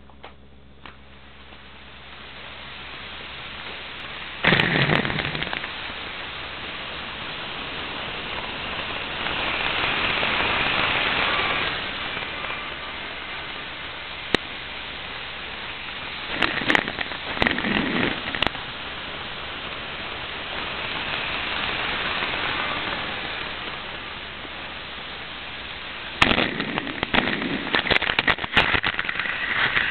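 Model train running on its track, heard through a Hot Wheels Video Racer toy camera's small microphone: a steady hissing rumble that swells and fades, broken several times by bursts of clattering clicks as the train passes close.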